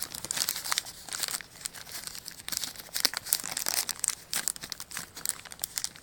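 Clear plastic bag crinkling in irregular bursts as it is handled.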